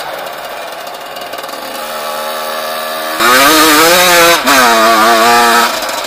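1996 Yamaha YZ125 single-cylinder two-stroke dirt-bike engine, low and off the throttle for about three seconds. Then the throttle is snapped open and the engine revs hard with a wavering pitch for about two and a half seconds, with a brief break in the middle, before it drops back off the throttle.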